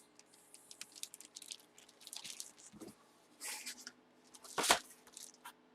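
Hands handling cards and packaging: scattered rustles, crinkles and light clicks, with a louder knock a little under five seconds in.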